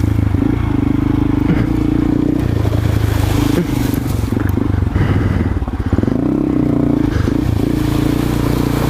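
Small motorcycle engine running under way, its pitch dipping and rising a couple of times as the throttle is eased off and opened again.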